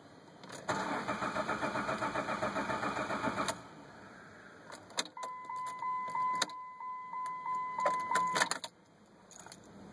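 A 2007 Jeep Liberty's starting system turned with the key: a rapid, even clatter for about three seconds that does not catch, as the Jeep fails to start. Then a few key clicks and a steady electronic warning chime for about three seconds, cut off with a click.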